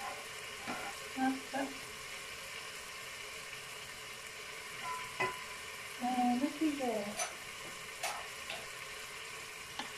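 Chicken thighs frying in the hot bowl of a Cookeo multicooker, a steady sizzle, with a few light clicks of a utensil. A brief wavering pitched sound, the loudest thing here, comes about six seconds in.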